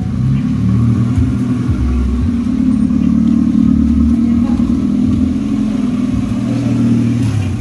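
Volkswagen Logus GLi engine running at low revs as the car creeps forward at walking pace. The sound is steady and mostly low-pitched, and it fades out near the end.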